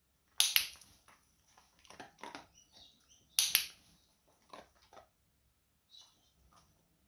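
Dog-training clicker clicking twice, about half a second and three and a half seconds in, marking the dog's head turn. Between and after the clicks come soft taps and crunching as the dog picks up and eats tossed treats from the mat.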